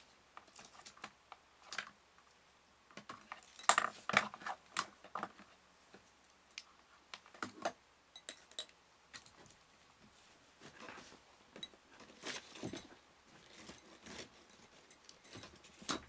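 Scattered clicks, taps and light clatter of small hard objects being handled as a hot glue gun's cord and plug are plugged in. The loudest flurry comes about four seconds in.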